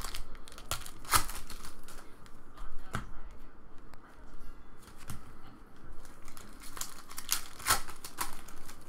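Foil wrappers of Bowman Draft trading-card packs being torn open and crinkled by hand: a series of sharp crackles and rips, with the loudest about a second in and again near the end, and the cards handled in between.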